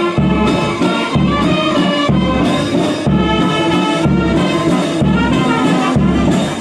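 Brass-led music with a steady, deep beat.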